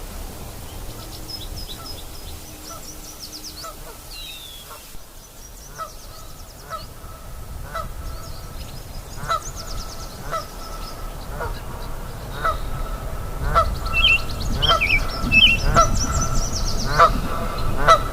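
A chorus of nyamang and river birds calling. Short pitched calls repeat about once a second and come faster and louder in the second half, with high chirping trills above them over the babble of a stream.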